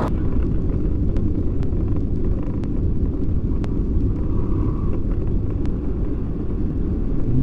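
Car cabin noise while driving on a wet road: a steady low rumble of tyres and engine, with a few faint scattered ticks.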